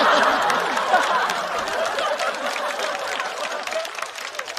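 Studio audience laughing and clapping after a punchline, loudest at the start and dying away over a few seconds.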